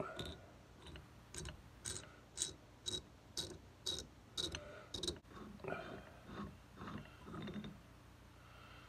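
Faint, even metal clicks, about two a second, as the pressure relief valve on a Cat 60 oil pump is screwed out by hand, then softer sounds of the loosened metal valve parts being handled.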